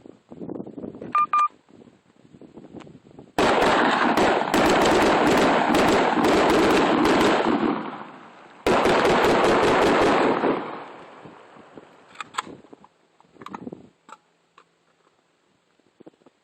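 Rapid gunfire in two long strings of shots fired in quick succession, the first lasting about four seconds and the second about two, with scattered clicks before and after.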